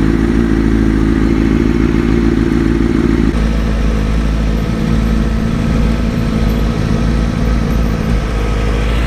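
Sport motorcycle engine running at low riding speed, heard from the rider's own bike, over a steady low wind rumble. The engine note drops about three seconds in.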